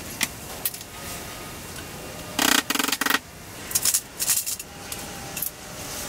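Clinks, knocks and clatter of hand tools and hardware being handled. About two and a half seconds in comes a loud, harsh burst lasting under a second.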